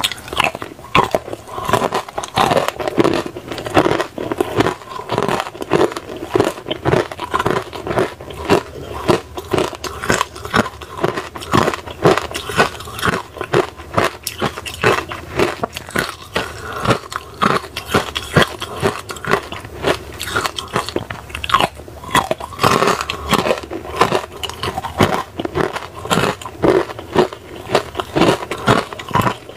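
Hard ice cubes frozen with pomegranate seeds being bitten and crunched between teeth: a close, continuous run of sharp cracks and crunches, mixed with chewing.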